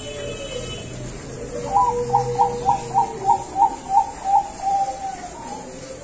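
Zebra dove (perkutut bangkok) singing: a quick string of about nine high cooing notes, roughly three a second, starting about two seconds in and ending in a longer drawn-out note.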